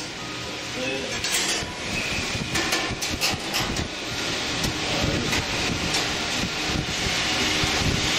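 Light clinks and rattles of metal gas-grill parts, the burner valve fittings and igniter wires, being handled and worked loose, over a steady rushing background noise.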